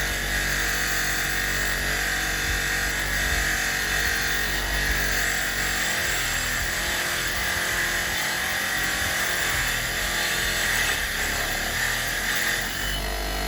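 A power tool runs steadily while a steel box spanner is held against it to clean off rust and grime. The grinding note stops near the end, leaving the motor running.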